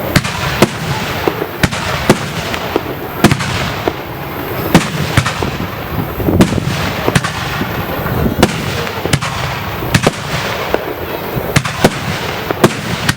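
Fireworks display of mostly small shells fired at close range: sharp bangs of shells bursting, roughly one or two a second, over a continuous crackling hiss.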